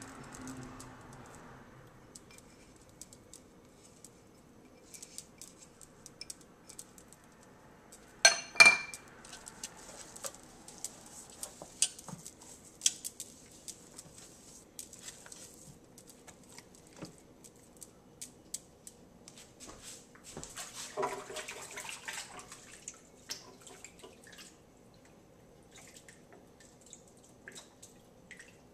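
Hands handling and rubbing a seasoned pork roast in a slow-cooker pot, with many light clicks and clinks against the pot, two sharp loud clinks about eight seconds in, and a longer stretch of rubbing about twenty seconds in.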